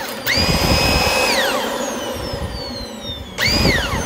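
Dyson DC25 upright vacuum running in short bursts: a high motor whine rises, holds for about a second and falls away, then a second, shorter rise and fall near the end. The brush roller is spinning again after being freed by hand.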